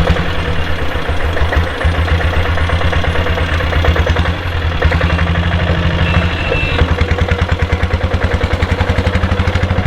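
Royal Enfield diesel Bullet's single-cylinder diesel engine running under the rider, with an even pulsing beat that becomes more distinct from about seven seconds in.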